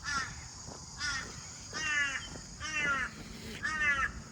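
A bird calling five times: harsh cawing calls about a second apart, each falling in pitch, over a steady high hiss.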